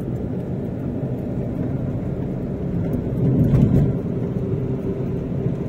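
Steady engine and road noise inside a Hyundai i20's cabin while driving, with a brief louder swell a little past halfway.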